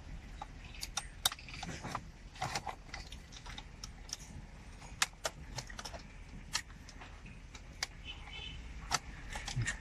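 Irregular light clicks and rattles of a wiring harness, plastic connectors and dashboard trim being handled by hand behind a car's dashboard.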